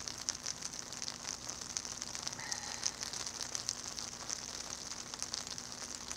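Freezing rain pattering on ice-coated branches, wires and pavement: a steady, dense crackle of small ticks, with a faint steady low hum underneath.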